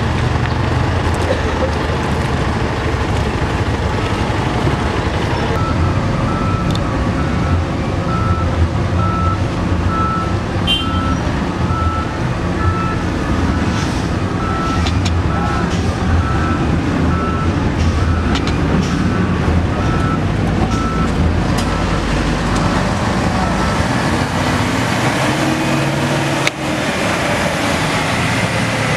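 Diesel engines of a heavily loaded truck and a wheel loader working it through deep mud, a steady low rumble. From about five seconds in, a reversing alarm beeps steadily.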